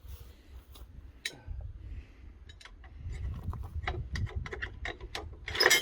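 Irregular clicks and knocks of hooks and tie-down gear being handled on a car trailer, over a low rumble, with a louder clatter near the end.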